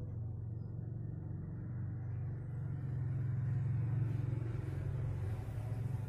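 A steady low rumble that grows a little louder and brighter around the middle, with a hiss filling in above it.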